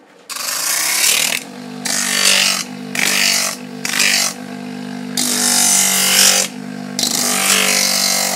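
Electric motor spinning a sandpaper disc, with a coconut shell pressed against it to sand its outside: about six loud bouts of grinding, the motor's steady hum between them.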